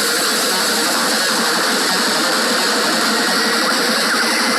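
Heavy electric-guitar rock music played loud through a small DIY Bluetooth speaker with a 2-inch driver in a PVC pipe, dense and harsh with almost no bass.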